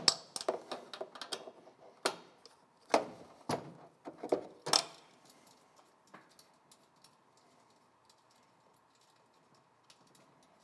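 Small metal clicks and clinks as loosened hex nuts are spun off the studs of a boiler heat exchanger's top plate by hand and handled. There are a run of sharp clicks in the first five seconds, then only faint ticks.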